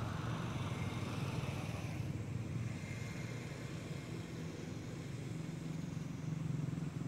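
A motor vehicle engine running nearby with a steady low drone.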